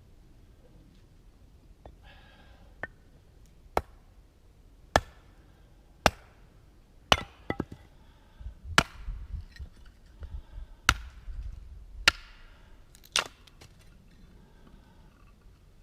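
Helko camp axe with a 2.5-pound C45 steel head chopping firewood: about a dozen sharp blows, roughly one a second, with a quick double strike near the middle.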